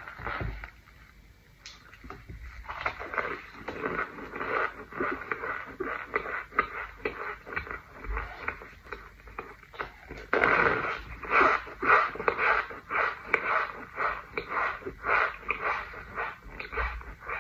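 Crunching and chewing of a pressed white powder brick: a soft scrape at first, then rapid crumbly crunches that grow louder and denser from about ten seconds in.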